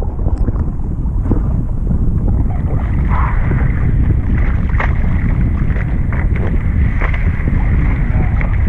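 Wind buffeting the microphone of a board-mounted action camera, over water rushing and splashing along a windsurf board under way. The loud rumble runs steadily, with short splashes now and then.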